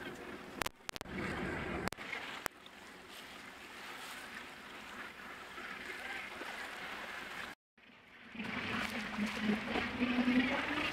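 Wind and sea wash aboard a boat under way, with a few sharp knocks in the first two or three seconds. The sound cuts out completely for under a second about three-quarters of the way through, then comes back louder with a low wavering hum.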